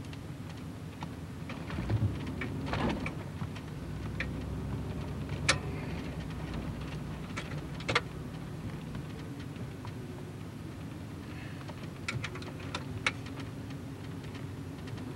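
Car engine and road noise heard from inside the cabin while driving slowly: a steady low rumble, with a few sharp clicks about five and a half and eight seconds in and a short run of ticks near the end.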